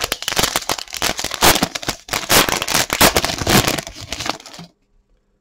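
Foil wrapper of a 2021 Topps Chrome baseball card pack crinkling and crackling as it is handled and opened, stopping abruptly near the end.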